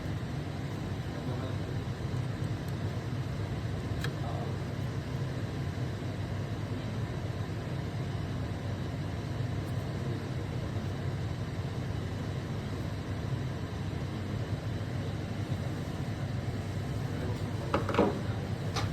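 Steady low mechanical hum, with a few faint clicks and a louder knock near the end.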